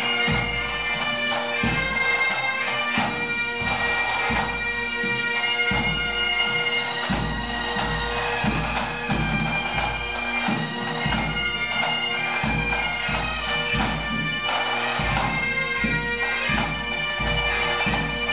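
Pipe band playing: Great Highland bagpipes sound a tune over their steady drones, with a drum beating underneath.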